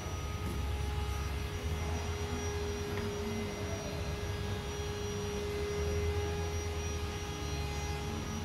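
Steady low mechanical hum with a faint high steady whine over it.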